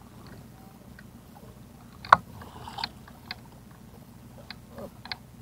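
A fishing rod being taken up and worked in a small plastic boat: one sharp knock about two seconds in, then several lighter clicks, over a steady low hum.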